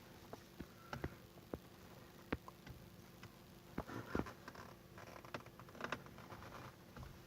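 Faint scattered clicks, taps and short scraping as a flat-head screwdriver and fingers work at the plastic horn button on a car steering wheel, prying the horn pad loose, with a longer scratchy stretch about four seconds in.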